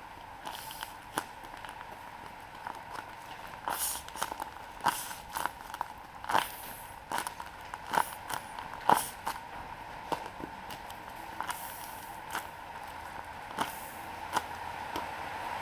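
Handmade paper squishies and their paper packaging being handled: irregular crinkles and sharp taps, thickest in the middle, over a faint steady hum.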